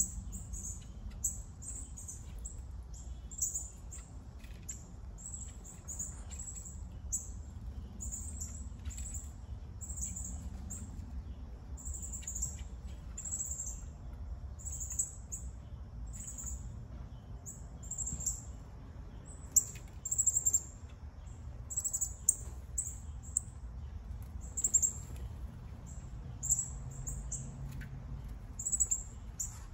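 Birds chirping, short high calls repeating several times a second, over a steady low rumble.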